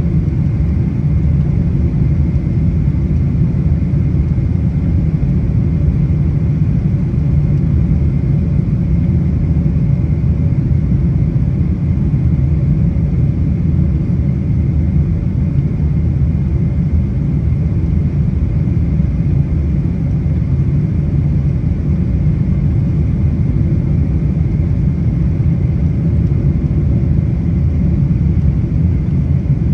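Steady cabin rumble of a Boeing 777-200ER, engines and airflow heard from inside the passenger cabin, with a faint steady hum above it.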